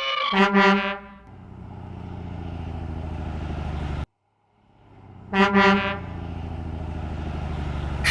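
Truck horn sound effect honking, followed by a truck engine running with a steady low rumble that builds and cuts off suddenly about four seconds in. The same honk-and-engine sequence then repeats, with the engine fading back in before the honk.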